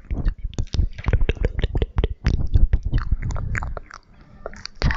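Close-miked ASMR mouth sounds: wet lip smacks, tongue clicks and chewing-like squelches, several a second, with a short lull about four seconds in.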